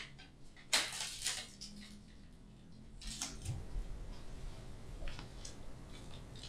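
A few faint, scattered rustles and soft clicks: latex-gloved hands handling and stretching a thin, rubbery skin peeled from a plastic bottle, with a soft low thump about halfway through.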